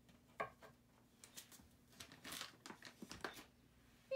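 Faint, irregular taps and scrapes of a butter knife cutting soft banana slices on a wooden cutting board, with a steady low hum underneath.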